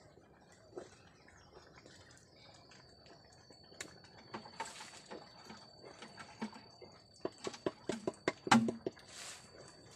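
A utensil knocking and scraping against a blackened cooking pot on a wood fire as its contents are stirred: scattered taps at first, then a quick run of sharper knocks near the end.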